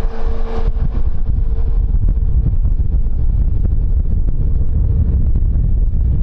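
Strong wind buffeting the microphone, with a steady low rumble throughout. A faint steady hum from a distant aircraft engine fades out about two seconds in.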